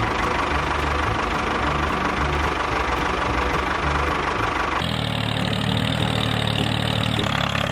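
Small engine running steadily, with a change in its sound about five seconds in.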